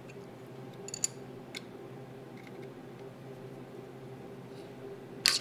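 Faint light clicks of a wrench and screwdriver on a rocker-arm adjuster screw and its locknut, as the valve clearance is locked after setting it with a feeler gauge. A louder sharp sound comes near the end, over a steady low hum.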